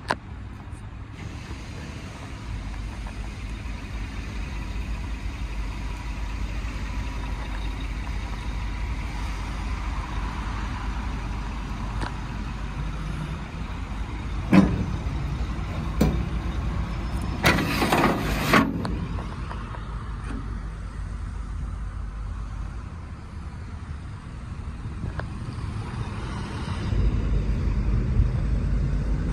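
Steady low vehicle rumble, with a few sharp knocks and rattles around the middle and the rumble growing louder near the end.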